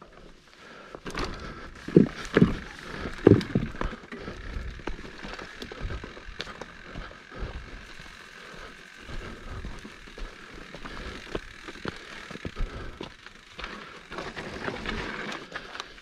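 Mountain bike on a dirt trail: tyres rolling and frame and chain clattering, with a few loud knocks about two to three and a half seconds in.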